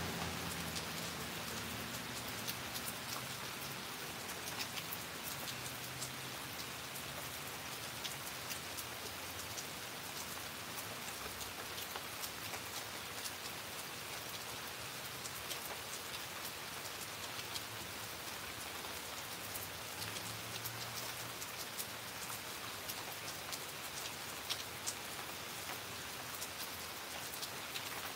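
Steady rain falling: a constant hiss with many individual drops ticking close by.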